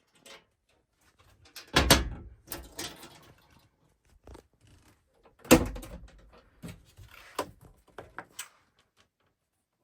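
Two heavy thumps about four seconds apart, each trailing off briefly, with lighter knocks and clicks between and after them.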